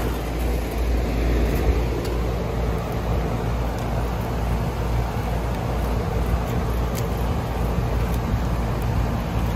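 Outdoor 4-ton central air-conditioning condenser running: a steady low compressor hum with the rush of its fan.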